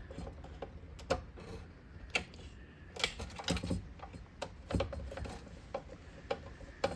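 Irregular light clicks and taps, about ten, from a small screwdriver and a plastic cover being handled, as a crookedly screwed-down cover is undone to be refitted straight.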